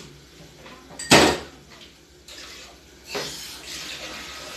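A single sharp metal clank of cookware about a second in, then from about three seconds in a steady run of water, as from a tap filling a cup for the rice.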